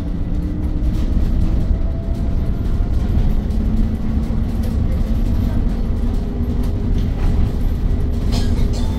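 Cabin noise inside an autonomous city bus under way: a steady low road and drivetrain rumble with faint whining tones, and a brief rattle near the end.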